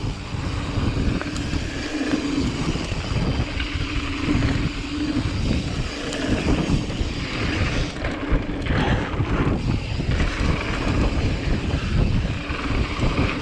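Wind rushing over the microphone with a steady rumble of bike tyres rolling over a dirt jump line.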